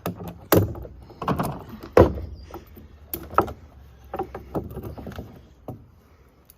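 Irregular knocks and thuds of wooden frame parts and tools being handled and set down, about ten in all, the loudest about two seconds in.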